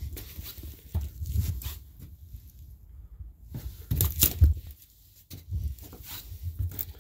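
Footsteps climbing old, debris-covered stairs, an uneven series of heavy treads with crunching and scraping grit underfoot.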